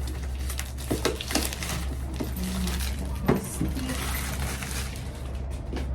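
Packaging being opened and handled during an unboxing: rustling with many light clicks, knocks and clinks, over a steady low hum.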